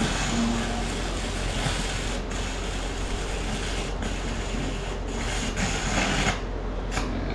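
Electric arc welding on steel square pipe: a steady scratchy crackle, briefly broken a few times and dropping off for a moment near the end.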